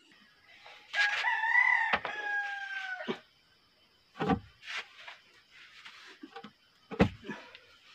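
A rooster crows once, one long call starting about a second in and lasting about two seconds, its pitch wavering and then sliding slightly down. Later come a few short dull knocks as a wooden post is set upright in a hole in an earth floor.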